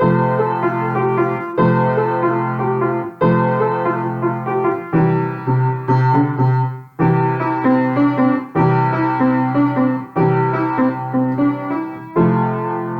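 Intro music on a piano-like keyboard: a melody over sustained chords, in short phrases that begin again about every one and a half to two seconds.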